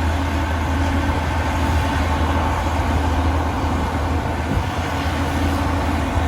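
Heavy earthmoving machine's diesel engine running steadily: a constant low drone with a faint steady whine above it.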